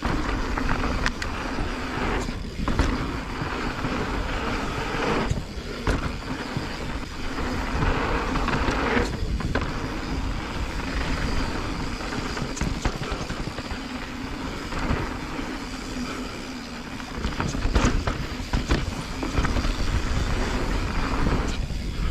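Mountain bike descending a dry, dusty, rutted dirt trail: a steady rush of tyre and riding noise with scattered knocks and rattles over bumps, and a few brief dips in level.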